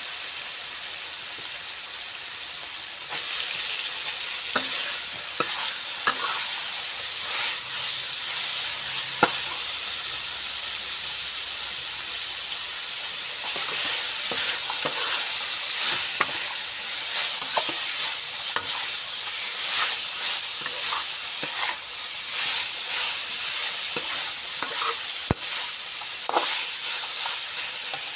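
Chicken stir-frying in oil in a metal wok, a steady sizzling hiss that gets louder about three seconds in, with the metal spatula repeatedly scraping and clicking against the pan as the food is tossed.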